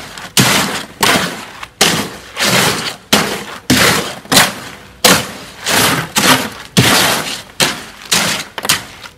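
Mason's hoe working wet plasticized concrete in a wheelbarrow tray: a rough scrape and clatter of stone on each push and pull, in a steady rhythm of about three strokes every two seconds.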